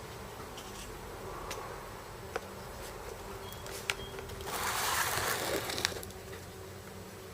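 A woman's long, breathy hiss of a breath while smoking, lasting about a second and a half, a little past the middle, with a few faint clicks before it.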